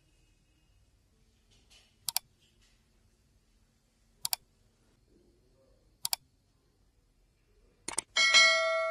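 Sound effects for a like, share and subscribe button animation: three computer-mouse clicks about two seconds apart, each a quick double click. Near the end another click is followed by a bright notification-bell ding that keeps ringing.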